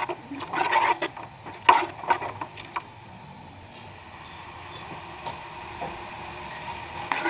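A spoon stirring thick curry in a metal pot, scraping and knocking against the pot's side in the first three seconds, with the loudest knock near two seconds in. After that there is only a steady low hiss.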